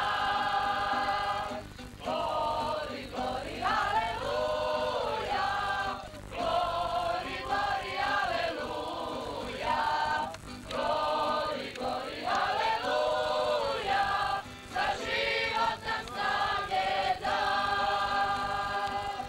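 A group of women singing together in long held notes that slide up and down in pitch, with short breaths between phrases.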